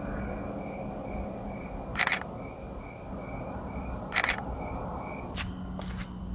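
DSLR camera shutter firing twice, about two seconds apart, each a sharp double click, followed by a couple of lighter clicks near the end. A faint, steady pulsing chirp of insects runs underneath.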